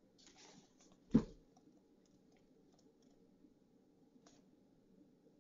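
A hardback diary being handled: a brief rustle of paper, then a single sharp thump about a second in, followed by a few faint ticks.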